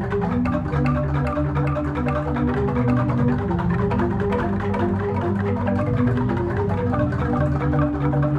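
Balinese jegog ensemble of bamboo-tube xylophones playing: deep, ringing bass notes under fast, dense strokes of higher tuned bamboo.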